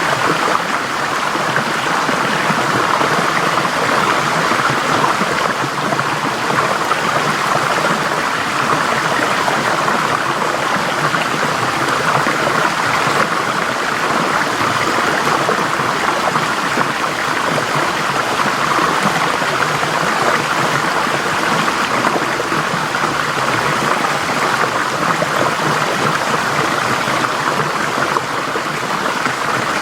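Forest stream flowing steadily over rocks, a continuous rushing and babbling of water.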